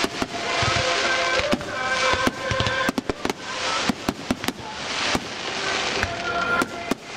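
Aerial fireworks going off in rapid succession: many sharp bangs and crackles, some in quick clusters, over a continuous hiss of burning shells.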